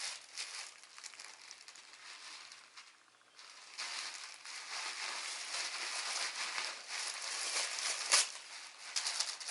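Packaging crinkling and rustling as the boxed clutch is handled, dropping away briefly about three seconds in and then going on more densely, with one sharp click near the end.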